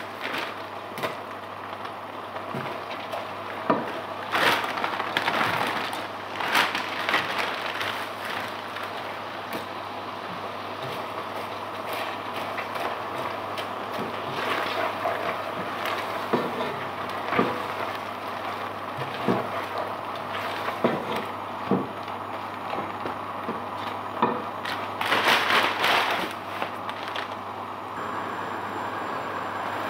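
Thick curry simmering and sizzling in a non-stick pot while a spatula stirs it, scraping the pot and knocking against its sides with scattered clicks, in a louder scraping stretch near the end.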